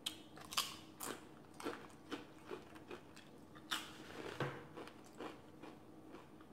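Close-up chewing of a crisp tortilla chip dipped in salsa: about a dozen irregular crunches, some louder than others.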